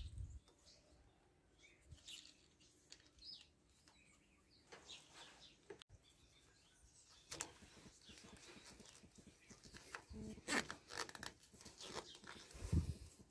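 Faint clicks and rubbing of plastic pipe fittings being handled as a yellow garden-hose quick connector is fitted onto a clear plastic pipe adapter, with a couple of louder knocks near the end. Birds chirp faintly in the background.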